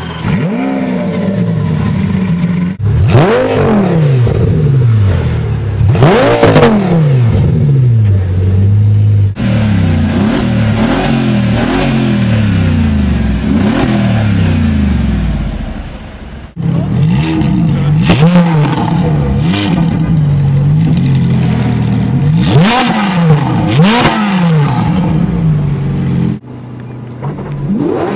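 Supercar engines revving hard in a string of short clips, among them a Lamborghini Aventador's V12 and a Mercedes G-Class AMG: again and again a sharp rev that rises and drops back, with abrupt changes from one car to the next.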